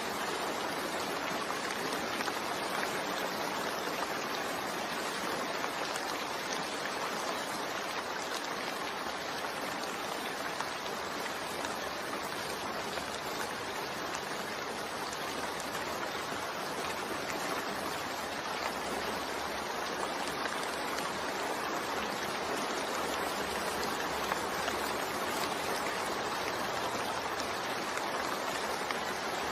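Steady rain, an even hiss of falling water with no thunder or separate drops standing out.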